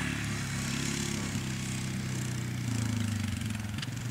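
Quad bike (ATV) engine running steadily, getting a little louder about three seconds in.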